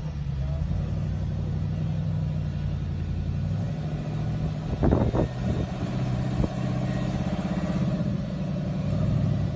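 Toyota FJ Cruiser's 4.0-litre V6 running steadily under load as it crawls up a rock ledge, a low, even engine drone. A few sharp knocks come about five seconds in, and one more about a second and a half later.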